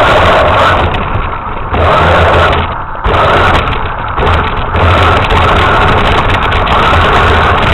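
Radio-controlled truck's motor running loudly and steadily, easing off briefly three times as the throttle drops back.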